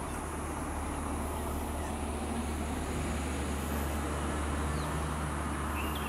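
Steady low rumble of road traffic, with a faint short chirp near the end.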